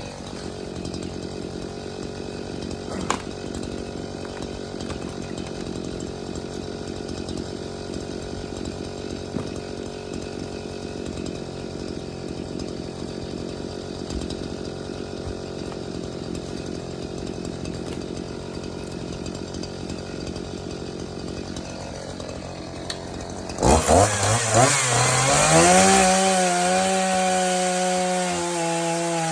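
Echo 501P 50cc two-stroke chainsaw, brand new and not yet broken in, running steadily. About 24 seconds in it suddenly gets much louder, its pitch rising and then holding high and steady as it cuts through pine.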